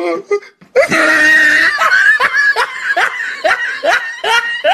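A person laughing loudly, starting about a second in and breaking into a run of short rising 'ha' sounds, about three a second.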